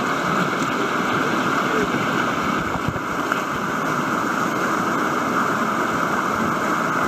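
Whitewater of a river rapid pouring over a rock ledge into a standing wave, a steady rush of water with no breaks.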